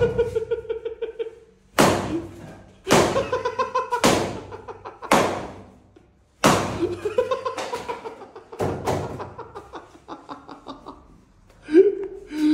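Several sharp smacks about a second apart as foam pool noodles strike, each followed by a short pitched, fluttering tail that fades out, like an added slapstick sound effect.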